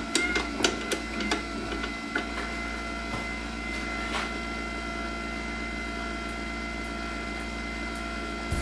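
Steady high electric whine from the milling machine, with several light clicks and taps in the first second and a half as a hand handles the power feed's shaft coupling, and one more tap about four seconds in.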